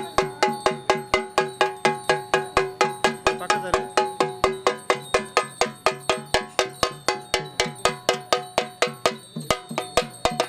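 Ritual percussion beaten in a steady fast rhythm, about three to four strokes a second, each stroke ringing with a metallic tone.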